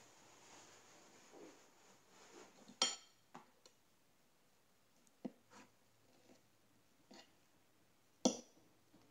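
Fork and knife clinking against a plate while cutting pancakes: a few short, sharp clinks with quiet between, the loudest about three seconds in and another near the end.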